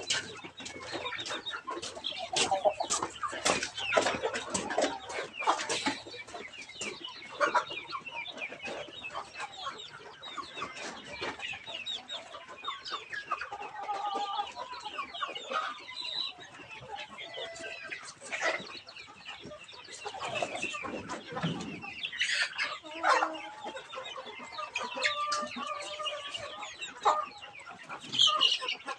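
A flock of young heritage chickens clucking and calling softly while they feed, with many sharp taps of beaks pecking feed from a trough, busiest in the first few seconds.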